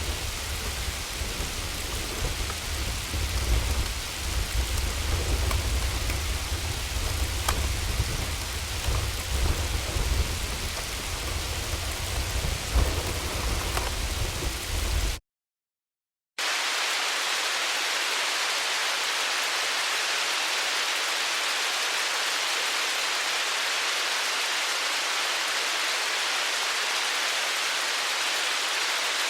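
Hailstorm: hail and rain pelting down over a low rumble, with scattered sharp hits standing out. Roughly halfway through, it cuts out for about a second. A steadier, even hiss of falling hail and rain then takes over, without the rumble.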